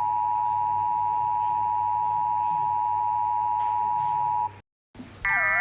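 Emergency broadcast alert tone: a steady single-pitch beep held for about four and a half seconds, then cut off abruptly. After a brief silence, another alarm begins near the end: a chord of steady tones with a slowly wavering, siren-like tone over it.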